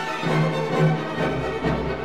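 Orchestral background music with bowed strings. A low rumble comes in near the end.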